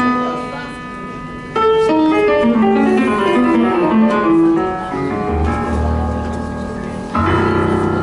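Tango music led by piano: a held chord, then a loud entry about a second and a half in and a run of notes stepping downward, with low bass notes coming in after the middle and a fuller chord near the end.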